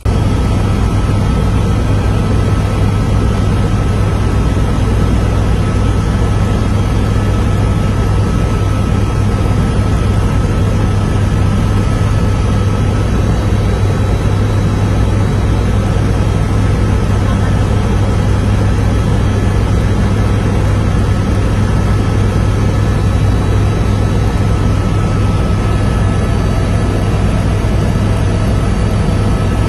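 Helicopter cabin noise in flight: a steady drone of engine and rotor, heaviest in the low end, with a thin constant whine over it.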